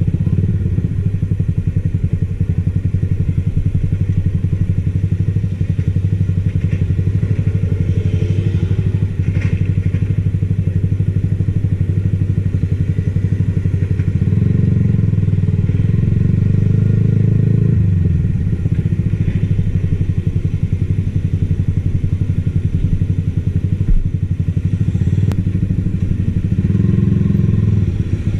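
Yamaha XSR155's single-cylinder engine running steadily under way, its note swelling as the throttle opens around the middle, dropping back a few seconds later, and picking up again near the end.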